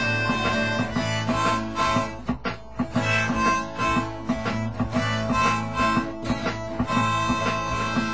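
Harmonica in a neck rack playing a blues line over a strummed acoustic guitar.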